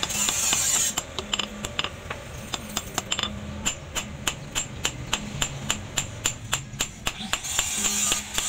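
A hand hammer strikes a red-hot axe head on a steel post anvil in quick, even blows, about three a second, each with a short metallic ring: the axe is being forged into shape. A steady hiss fills the first second and comes back near the end.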